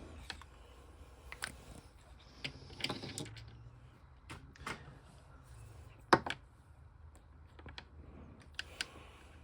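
Scattered light clicks and taps of small objects being picked up and set down, with a short scrape about three seconds in and a sharper knock about six seconds in.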